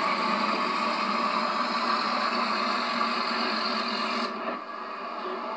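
Motorboat engine running steadily as the boat passes close by, then dropping suddenly in level about four seconds in.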